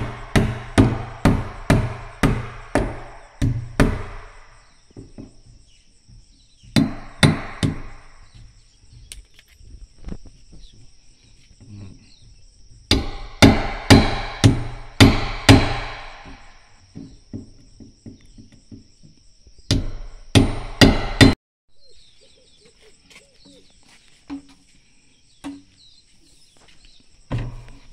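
Hammering: bursts of sharp, ringing blows at about two a second, the longest run lasting about four seconds, with a steady high insect whine behind.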